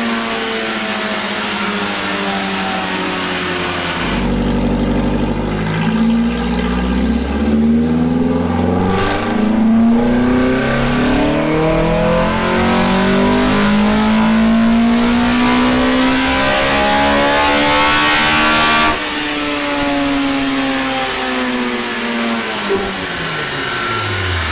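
Toyota 4A-GE twin-cam four-cylinder with individual throttle bodies and short 3D-printed velocity stacks, running on a dyno. After a few seconds of slowly falling revs, it goes to full throttle about four seconds in and the revs climb steadily for some fifteen seconds in a full-power pull. Then the throttle shuts suddenly and the revs fall away.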